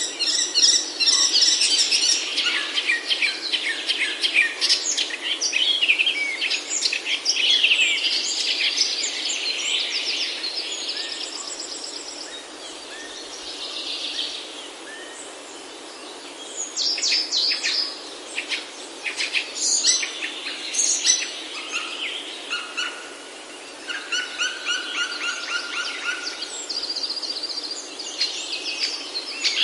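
Several wild birds calling and singing at once, with rapid chattering trills and repeated sharp notes. There is a lull about halfway through before the calling picks up again.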